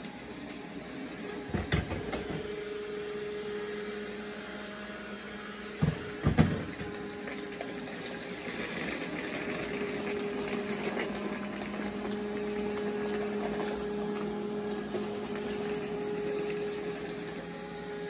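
Roborock S5 robot vacuum running over carpet, a steady motor and fan hum, with sharp knocks twice, about a second and a half in and about six seconds in.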